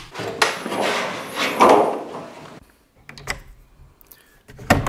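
A workshop drawer sliding along its runners with a rumbling swish, followed by a few sharp clicks of metal tools being picked from a socket set.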